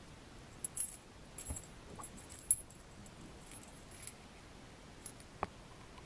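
Handcuff key and its key ring jingling in a series of small metallic clicks and tinkles as the key is brought to a steel handcuff's keyhole. The loudest click comes about two and a half seconds in, and a single click comes near the end.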